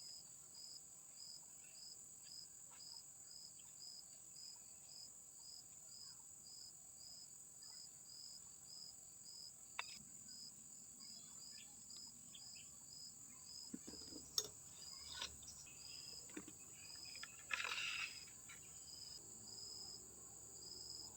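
Faint insect chorus: a steady high drone with a chirp repeating about one and a half times a second. A few light clicks and one short scratchy rustle come through near the end.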